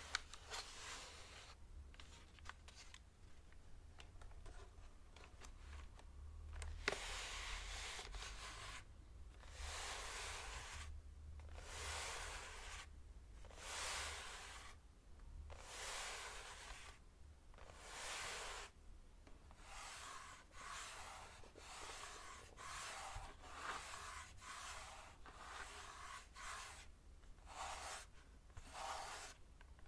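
Hands rubbing and brushing in slow, even swishing strokes, one every second or two, after several quieter seconds with a few light clicks.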